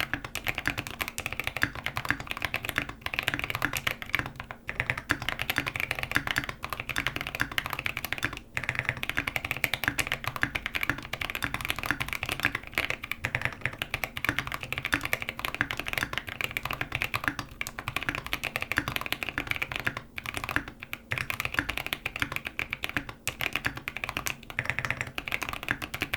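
Fast, continuous typing on a custom 65% mechanical keyboard: Boba U4T tactile switches, lubed with Krytox 205g0 and filmed, in a foam-dampened Tofu65 case with a polycarbonate plate and MT3 keycaps. The keystrokes come in a dense stream with a few brief pauses.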